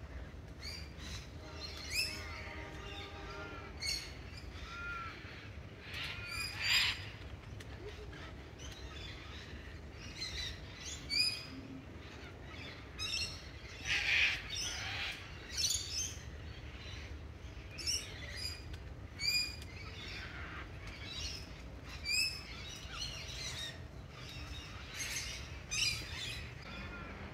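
Wild birds calling, with short chirps and quick whistled notes repeating every second or so, over a steady low background rumble.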